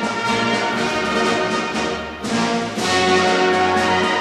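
Orchestral music led by brass, with horns and trombones holding sustained chords that change every second or so. It dips briefly about two seconds in, then comes back fuller.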